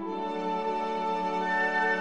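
Instrumental background music: a slow, held chord, with a higher note coming in about one and a half seconds in.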